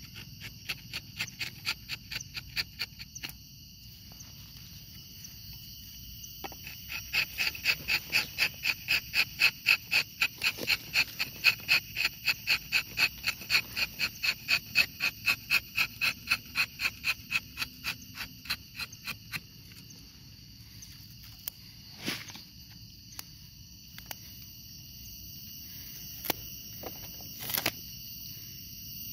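A steady, high insect drone with a wild animal's pulsed call over it: evenly spaced pulses, about three a second, a short run near the start and then a longer run of about twelve seconds that swells and fades. A few sharp clicks near the end.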